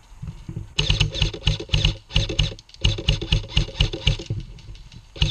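Airsoft electric rifle firing close by on full auto: a fast, even rattle of shots in bursts, starting under a second in, with brief breaks around two seconds and two and a half seconds in.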